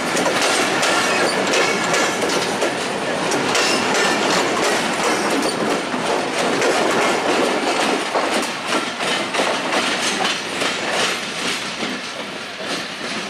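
Bangladesh Railway passenger train coaches rolling past close by, their wheels clattering over the rail joints, fading as the train moves away in the last few seconds.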